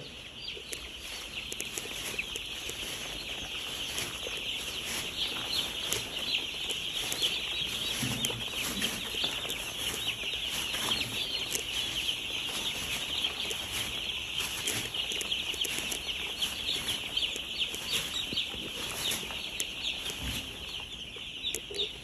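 A large flock of four-day-old broiler chicks peeping continuously, a dense chorus of high chirps.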